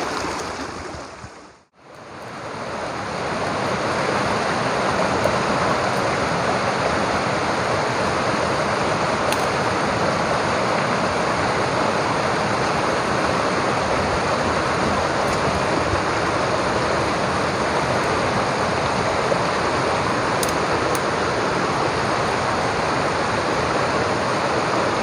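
Steady rushing of a flowing stream, after a brief drop to silence just under two seconds in.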